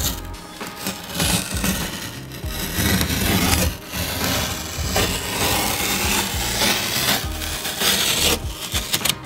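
Green painter's tape being peeled off a freshly painted plank wall in one long pull: a continuous raspy tearing with a few brief breaks.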